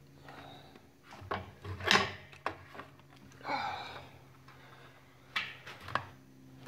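Metal clunks, clicks and a short scrape as a pressure switch is handled and turned by hand, threading onto its brass fitting on a compressor tank. The loudest knock comes about two seconds in. A faint steady low hum runs underneath.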